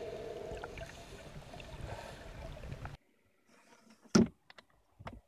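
Muffled underwater noise while a catamaran's hull is scrubbed with a hand scraper, cutting off about three seconds in. Near silence follows, broken by one short, loud, sharp sound about a second later and a fainter one near the end.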